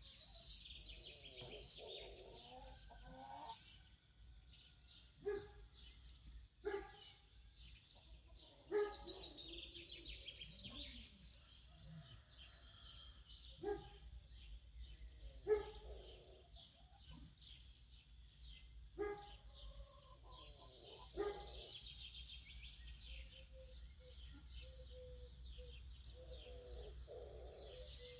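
Small birds chirping continuously in a dense morning chorus, with lower warbling song phrases now and then. Seven short, loud animal calls stand out a few seconds apart and are the loudest sounds.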